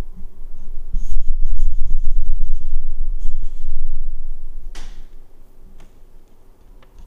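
Handling noise from the recording camera being repositioned: heavy low rumble and rubbing bumps for a few seconds, then a single sharp click about five seconds in.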